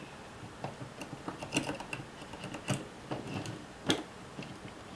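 Irregular small clicks and taps of a precision screwdriver and small parts on the metal chassis of a camcorder tape mechanism during disassembly, with two louder clicks in the second half.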